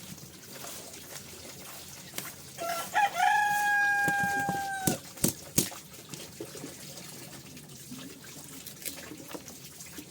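A rooster crowing once, a single long call that rises briefly and then holds level before cutting off, with water trickling in the background.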